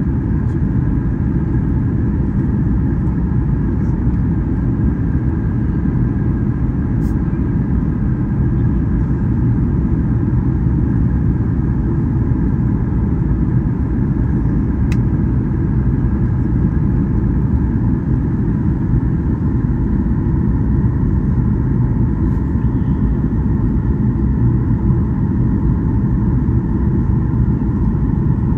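Steady airliner cabin noise: a constant low rumble of engines and airflow with a faint, steady whine above it.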